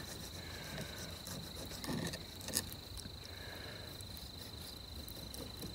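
Insects trilling steadily in one continuous high-pitched tone, with a faint click about two and a half seconds in.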